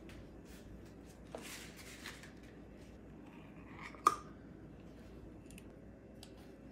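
Metal ice cream scoop and spoon working vanilla ice cream into a glass: soft scrapes of ice cream against metal, then a single sharp clink about four seconds in as metal knocks the glass, followed by a few faint ticks.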